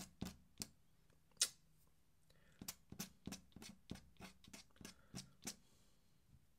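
Faint, quick, irregular clicks and scratches of an ink pen striking and dragging on paper in short strokes, about a dozen over the stretch.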